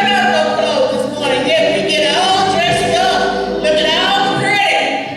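Voices singing a cappella in long held notes that slide slowly between pitches.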